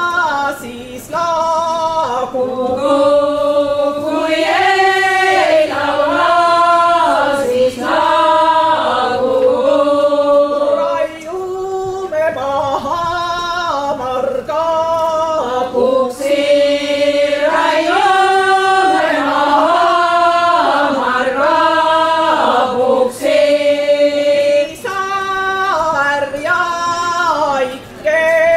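A folk vocal group singing a song together in harmony, the voices moving in steps between held notes.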